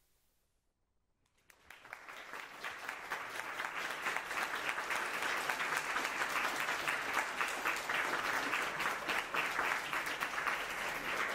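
Audience applauding: it starts about a second and a half in, swells quickly and holds steady.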